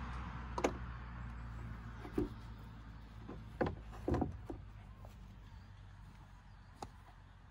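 Wooden plank knocking against the edge of a motorhome's rear garage and the ground as it is set in place as a loading ramp: several sharp knocks a second or two apart, the loudest about half a second in.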